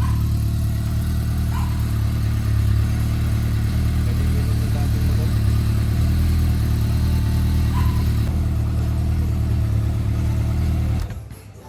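Honda CB400 Super Four Spec 3's inline-four engine idling steadily at an even speed; it cuts off near the end. The engine is being checked for a ticking noise.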